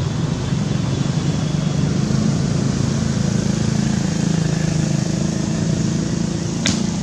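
A motor vehicle's engine running as a steady low hum that swells slightly midway, with one sharp click near the end.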